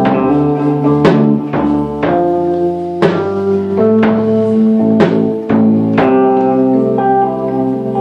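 Live band music: keyboard chords and drum hits, with a strong struck note about once a second over sustained tones.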